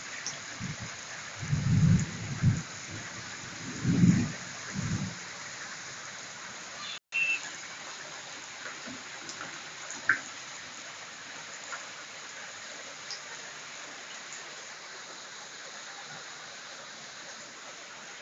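Steady hiss of rain, with several low thuds in the first five seconds. The sound cuts out for an instant about seven seconds in.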